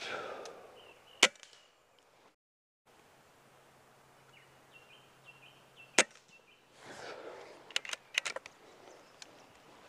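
Air rifles firing in turn: two sharp shots about five seconds apart, then a quick run of lighter clicks near the end.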